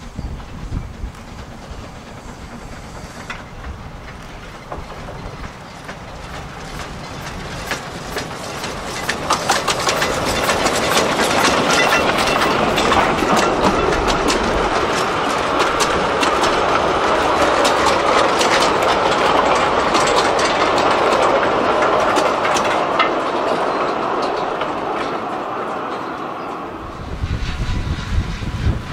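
Narrow-gauge steam train passing close by, its wheels clicking and clattering over the rail joints. It grows louder as it approaches, is loudest while the coaches and wagons roll past, then fades away.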